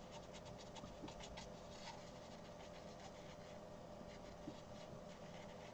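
Faint scratchy strokes of a dry-loaded watercolour brush across rough watercolour paper, a quick run of short strokes in the first two seconds, then only a few scattered ones.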